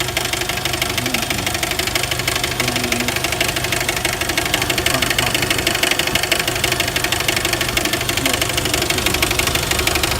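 1999 Jeep Wrangler TJ engine idling steadily with a fast, even ticking clatter. The owner hears a knock at the front of this engine and is not sure whether it is a front bearing or something else.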